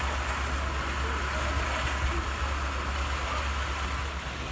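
Fire engine running steadily, a constant low drone with an even hiss over it.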